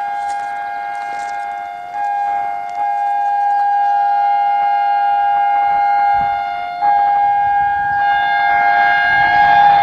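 Locomotive air horn sounded in long held blasts, several tones together in a steady chord that steps louder about two and seven seconds in. Near the end the rumble of the approaching train rises under it.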